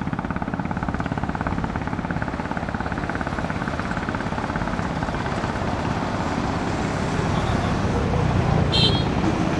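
An engine running steadily with a fast, even pulsing, getting a little louder toward the end; a short high beep sounds near the end.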